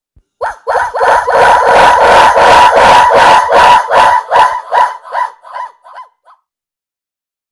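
A dog's 'woah' vocal sound effect repeated rapidly over and over, the copies running together into a loud, dense stream of yelping pulses. It cuts out about six seconds in.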